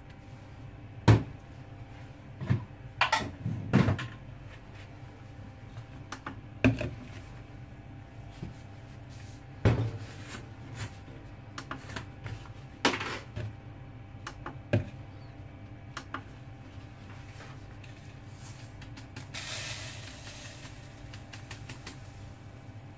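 Plastic measuring cups and a spoon being handled and set down on a stainless steel counter and digital scale: scattered sharp knocks and clicks over a steady low hum. Near the end comes a short rattling hiss as lye is poured from a plastic bottle into a plastic cup.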